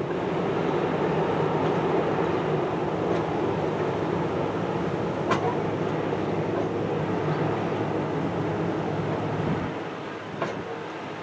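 Deep, steady machinery rumble with humming undertones from large ship engines passing close on the river. The lowest part of the rumble drops away about ten seconds in.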